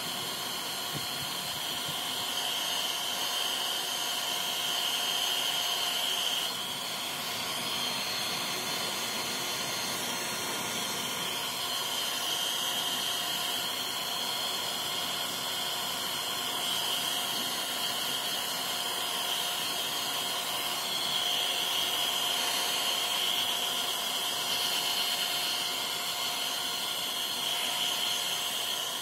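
Handheld hair dryer blowing on a kitten's fur: a steady rushing hiss with a constant high whine, dipping slightly about six and a half seconds in.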